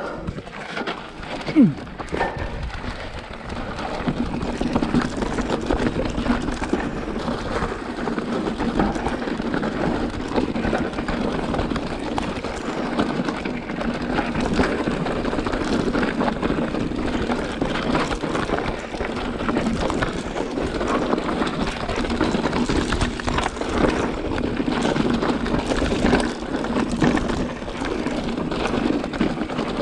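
Mountain bike rolling fast over a dirt trail: steady tyre noise with the bike rattling over rough ground, and one sharper knock about one and a half seconds in.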